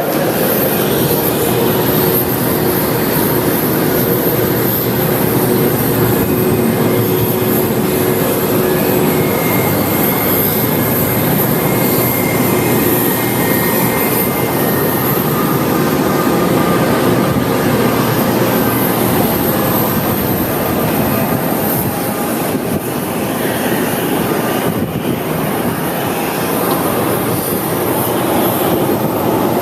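Boeing 757-200 airliner noise while parked before departure: a steady rush with a constant high whine, and a few faint tones that come and go.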